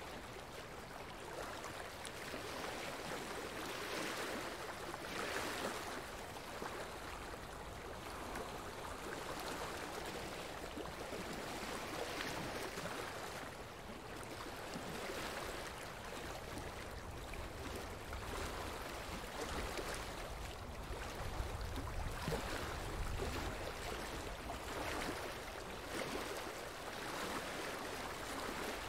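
Steady rushing noise like flowing water, swelling and easing every few seconds, with a deeper rumble for a few seconds past the middle.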